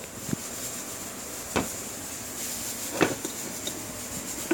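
Dry rice being tipped from a container into a pot of bean broth: three sharp knocks, each about a second and a half apart, as the container is tapped to shake loose rice that won't slide out, over a faint steady hiss.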